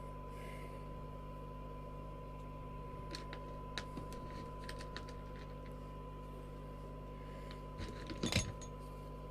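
Small clicks and taps as the lid of an AKD 4001 amateur radio's plastic case is handled and fitted back on, with a brief louder clatter about eight seconds in. A steady electrical hum and a faint even tone run underneath.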